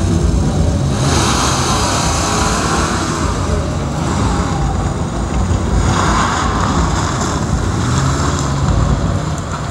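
1978 Porsche 911 SC's air-cooled flat-six revving hard as the car accelerates away and is driven around a tight course of cones, the engine note rising and falling with the throttle.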